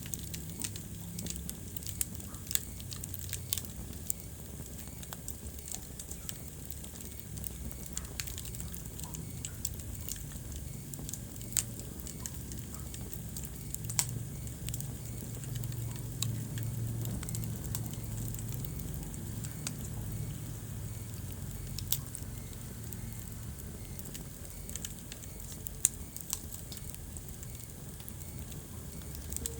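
Wood fire burning in a fireplace: a steady low rumble of flames with irregular crackles and sharp pops, the loudest pop about 26 seconds in.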